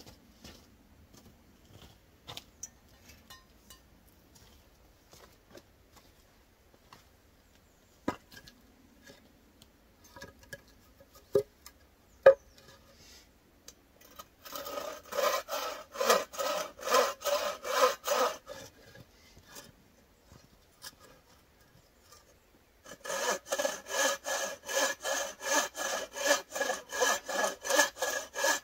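Bow saw cutting across a wooden plank in quick, even strokes, about three a second: a burst of sawing, a pause of a few seconds, then steady sawing again. In the quieter first half there are only a few sharp knocks.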